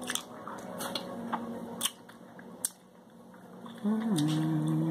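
Snow crab leg shells being broken and picked apart by hand, giving a few sharp clicks and cracks. About four seconds in, a closed-mouth hum of two notes, the second lower and held for over a second.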